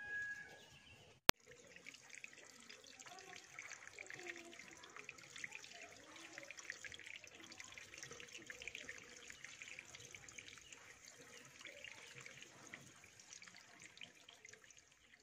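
A sharp click about a second in, then faint steady running and trickling water, full of small splashes and drips.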